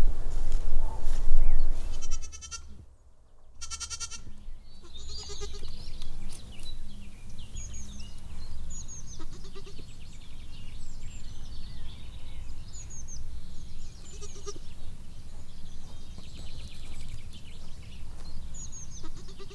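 Young goats bleating, two pitched bleats about two to four seconds in, after a low rumble at the start; from about five seconds on, birds chirp in short high calls with a few quieter calls beneath.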